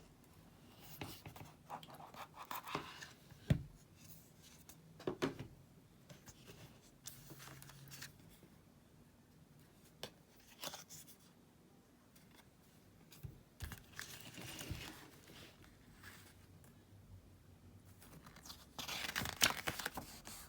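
Plastic packaging of an M.2 SSD heat sink kit being crinkled and torn open in bursts, with a couple of sharp knocks in the first few seconds and the loudest crinkling near the end.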